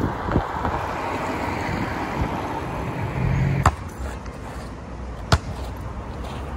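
A car passes on a wet road with a swishing tyre hiss that fades after about three and a half seconds. Then a basketball bounces twice on wet tarmac, about a second and a half apart.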